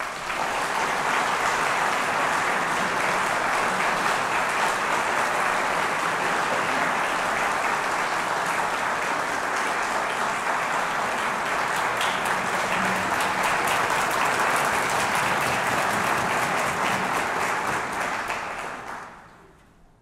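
Audience applauding steadily, starting abruptly and fading out near the end.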